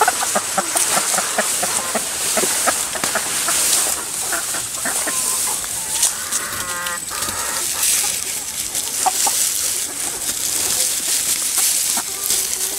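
Chickens clucking in short repeated notes, with one longer call about six and a half seconds in, over rustling of grass and leaves being handled close by.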